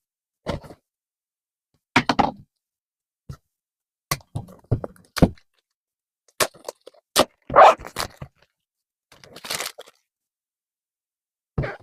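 Handling of a dash camera's box and packaging during unboxing: irregular clicks, knocks and thunks, with a short rustle of packaging about nine seconds in.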